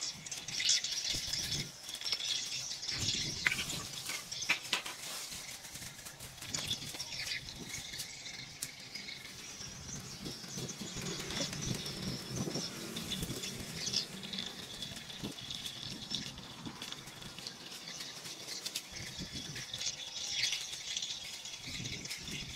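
Irregular rustling and crackling of leaves and branches, with many small snaps and clicks.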